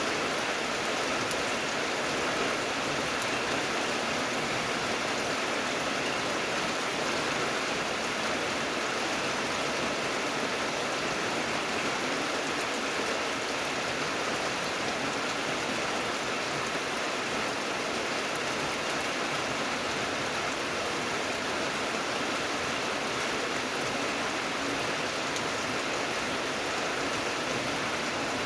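Steady rain: a continuous, even hiss of falling rain with faint ticks of individual drops.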